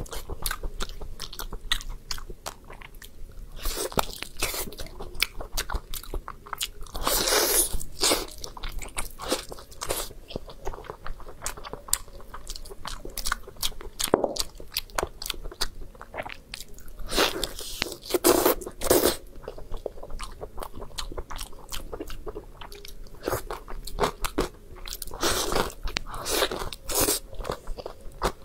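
Close-miked eating sounds of braised lamb ribs being bitten, torn off the bone and chewed. Irregular wet bites and crunches come in clusters, some louder than others.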